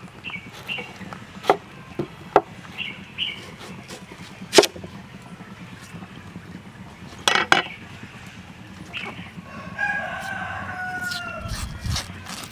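Cleaver knocking on a wooden chopping board as an onion is cut in half, a few sharp knocks with the loudest about four and a half seconds in and a pair about seven seconds in. Near the end a rooster crows once, its call falling in pitch.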